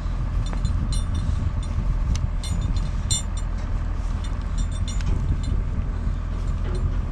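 Ratchet strap being worked by hand, its ratchet clicking a few times at irregular moments over a steady low rumble.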